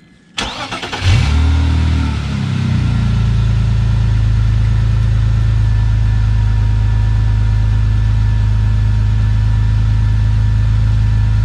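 BMW E46 inline-six, fitted with six new ignition coil packs, started: the starter cranks briefly about half a second in, and the engine catches about a second in. It revs up and settles, and from about three seconds in it runs at a steady idle.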